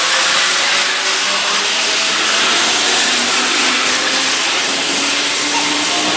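Keihan 2200 series electric train pulling out of the station and gathering speed alongside the platform: a steady rush of wheel and running noise, with a faint motor whine creeping slowly up in pitch.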